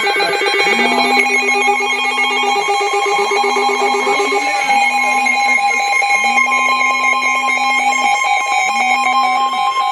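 Wireless Emergency Alert sounding on a phone: a harsh two-tone alert tone with the phone's vibration buzzing in the alert's pattern of one long pulse followed by two shorter ones, with brief gaps, repeated. A second, lower buzzing alert tone overlaps it for the first four seconds or so.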